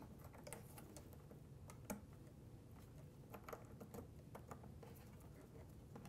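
Near silence with faint small clicks and light rustles of hands fitting plastic cable connectors, the thermal-sensor and SATA cable being plugged onto a 2.5-inch SSD; one slightly sharper click comes about two seconds in.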